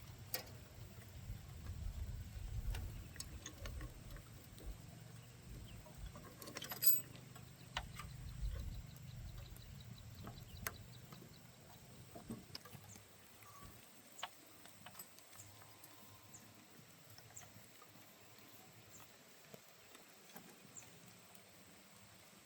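Scattered light clicks and taps, with a low rumble under them that fades out about halfway through; one sharper click stands out about seven seconds in.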